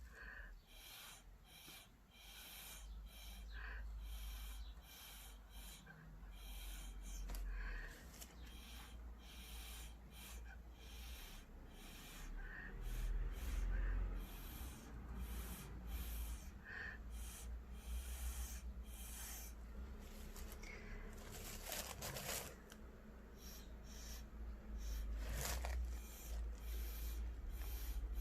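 Breath blown in repeated puffs through a drinking straw to push wet acrylic paint across a canvas, the air rumbling on the microphone, with a couple of sharper, stronger blows in the later part.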